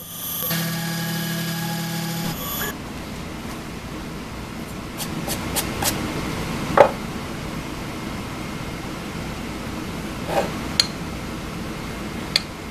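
Machined aluminum bracket parts being handled and fitted together on a wooden workbench: light clicks and knocks, with the sharpest knock about seven seconds in. A steady hum of several fixed tones runs for the first two seconds or so and cuts off abruptly.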